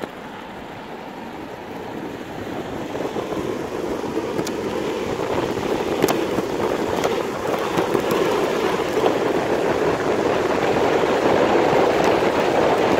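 Skateboard wheels rolling on asphalt, a steady rushing roar with wind on the microphone, growing steadily louder as the board gathers speed, with a few sharp clicks from the board.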